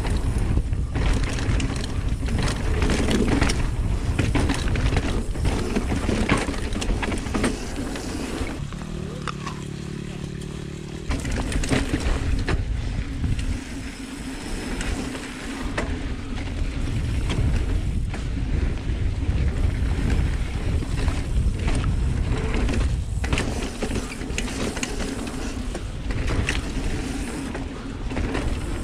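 Kona Honzo ST hardtail mountain bike rolling over a dry dirt trail: a steady rumble of tyres on dirt with constant small rattles and crackles from the bike, and a brief low buzzing tone about nine seconds in.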